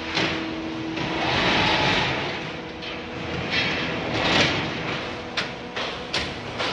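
Concrete paver block-making machinery running: a continuous mechanical noise that swells and fades, over a faint steady hum, with a few sharp clanks near the end.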